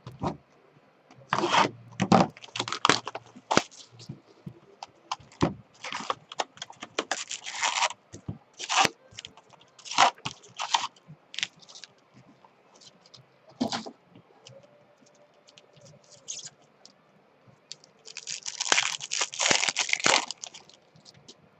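Packaging of 2017 Topps Stadium Club baseball cards being torn open and handled: an irregular run of sharp rips, crinkles and scrapes, with a longer stretch of tearing near the end.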